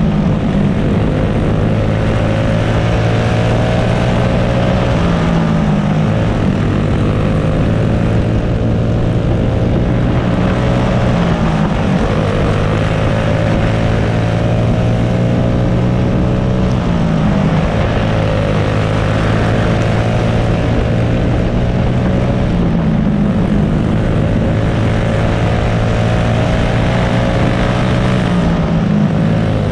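Clone kart's single-cylinder four-stroke engine running hard on track, its note dipping briefly and climbing back about every five to six seconds.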